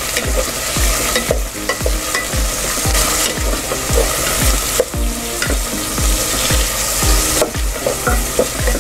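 Garlic, ginger and onions sautéing in hot oil in an aluminium pot, sizzling steadily, while a wooden spatula stirs and scrapes the pot in a steady rhythm of strokes.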